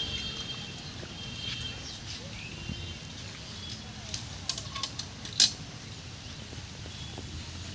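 Aluminium bucket being carried and set down on grass, its wire handle clinking in a few sharp clicks about four to five and a half seconds in, the loudest as the bucket comes to rest.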